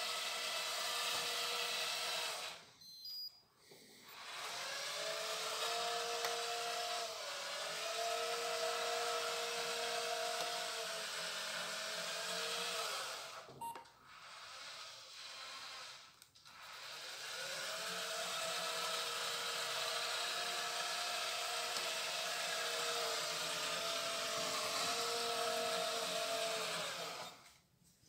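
Drive of a 1:8 scale RC Caterpillar 390D excavator's tracked undercarriage running: a steady whine of small motors. It cuts out about three seconds in, twice more in the middle and near the end, and the whine climbs in pitch each time it starts up again.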